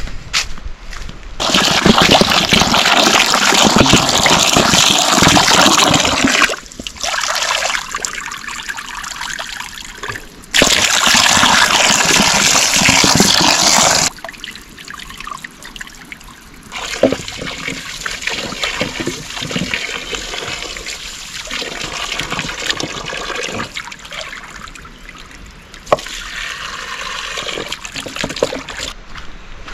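Water pouring or running into a vessel in two loud spells of a few seconds each, each starting and stopping sharply, then softer splashing and trickling.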